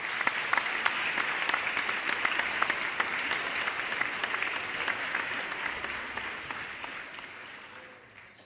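Audience applauding: many hands clapping in a dense, steady patter that begins abruptly, holds, then fades away over the last couple of seconds.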